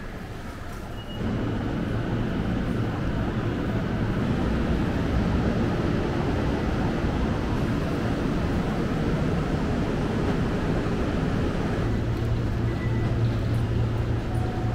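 Steady low hum and rumble of a Seibu Laview electric train at a station platform. It comes in abruptly about a second in, and the low hum grows stronger near the end.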